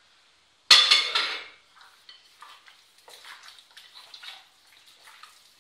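A small ceramic bowl is set down with a sudden clatter and brief ring a little under a second in. Then come soft, repeated wet squelches as hands turn raw chicken pieces in a spice and lemon-juice marinade in a glass bowl.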